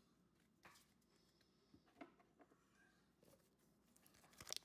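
Near silence with a few faint, brief taps and rustles from handling Pokémon trading cards and booster packs, and a sharper tap or two near the end.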